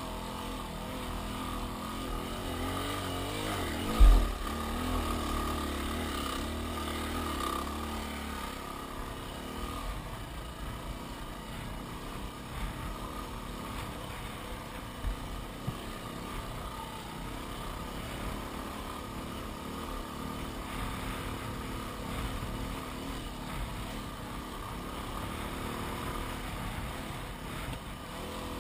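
Yamaha WR250R 250 cc single-cylinder four-stroke engine running as the motorcycle is ridden along a sandy track. Its pitch shifts up and down around four seconds in. A single loud thump about four seconds in is the loudest sound, followed by a few small knocks later on.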